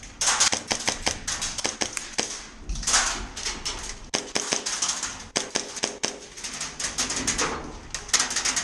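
Airsoft guns firing: rapid, irregular runs of sharp clicking shots.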